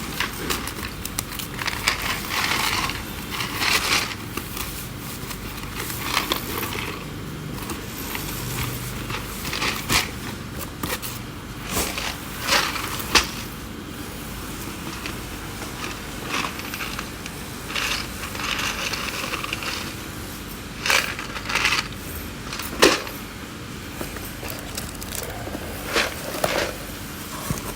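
Irregular rustling and crinkling of packaging being handled and opened, with scattered sharp clicks and knocks.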